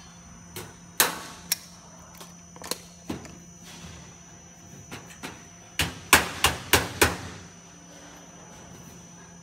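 Sharp metallic clicks and knocks from steel ridge capping being handled and pressed into place by hand on a corrugated roof. A few come spaced apart at first, then a quick run of about six louder knocks past the middle.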